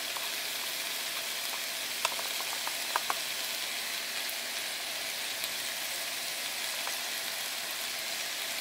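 Diced butternut squash, onion and garlic sizzling steadily in olive oil in a hot skillet, with a few light clicks about two and three seconds in.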